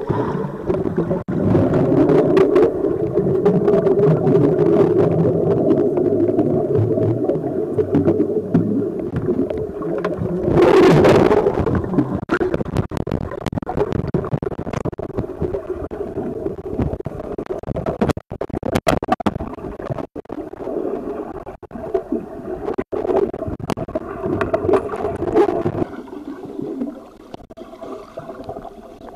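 Muffled rush and churn of river water and air bubbles heard from underwater, with scattered knocks and a brief louder bubbling splash about eleven seconds in. It grows quieter near the end.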